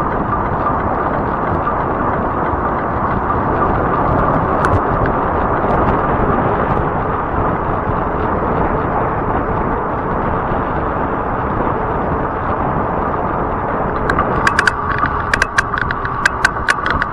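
Steady rush of wind over the microphone and fat tires rolling on asphalt while riding an e-bike. About three seconds from the end, a run of sharp, uneven clicks begins.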